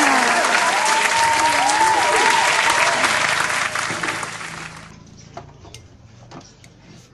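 Applause sound effect of clapping with cheering voices gliding up and down, loud and dense, cutting off abruptly about five seconds in. Then a few faint clinks of a metal spoon against a glass bowl.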